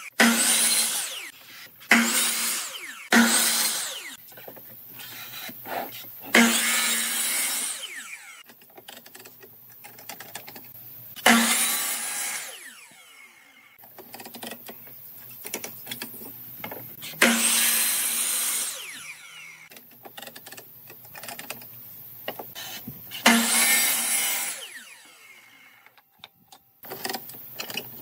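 Electric compound miter saw making repeated crosscuts through thin wood strips, about seven times. Each time the motor starts suddenly with a loud whine, the blade passes through the wood, and the motor winds down with a falling whine. Quieter knocks of the wood and saw being handled come between cuts.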